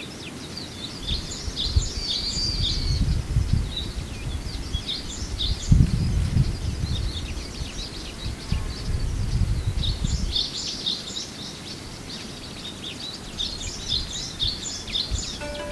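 Japanese white-eyes calling: a busy run of short, high, thin chirps and twitters. A low rumble sits underneath through the first two-thirds, loudest about six seconds in.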